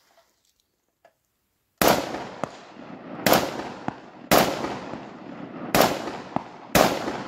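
Five rifle shots from a Famae SG 540 firing .223 rounds, starting nearly two seconds in and spaced about one to one and a half seconds apart, each sharp crack trailing off in a long echo.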